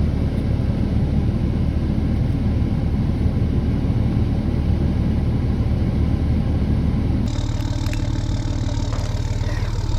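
A vehicle engine running steadily with a low rumble. The sound changes abruptly about seven seconds in, taking on a steadier hum with more hiss.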